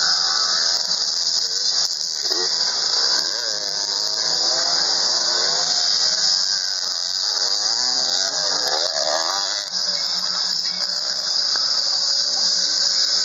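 Dirt bike engines revving, their pitch rising and falling and overlapping as several bikes ride past, strongest about nine seconds in. A loud steady high hiss sits over them.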